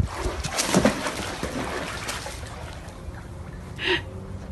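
A dog leaping into a swimming pool: a splash in the first second that fades into the sloshing of water as it swims. A brief high-pitched sound comes near the end.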